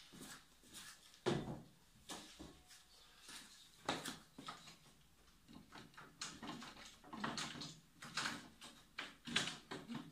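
A whiteboard being handled and set onto a wooden easel: a series of irregular knocks, clatters and short scrapes of the board against the wooden frame.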